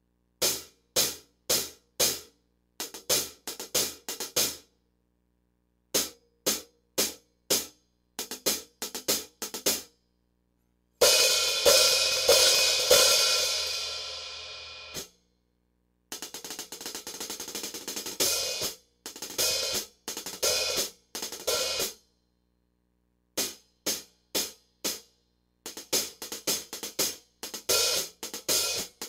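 A pair of 14-inch hand-hammered B20 bronze hi-hat cymbals played alone. It starts with short, sharp closed strokes in small groups with pauses between them. About 11 seconds in, an open wash rings and fades for some four seconds before it is cut off suddenly, followed by runs of quick strokes.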